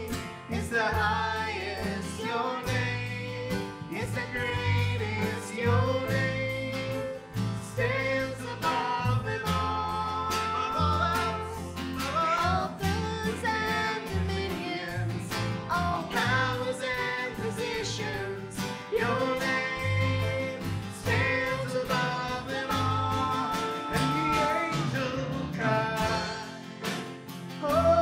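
Live worship band playing a congregational song: voices singing the melody over strummed acoustic guitar, electric bass guitar and piano.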